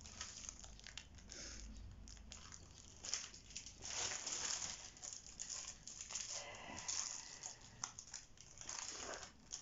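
Crinkling and rustling of plastic bags and paper being handled, in irregular bursts starting about three seconds in.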